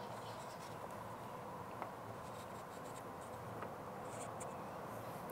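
Permanent marker drawn around a fiberglass mast tube: faint, steady rubbing of the tip with a couple of light ticks.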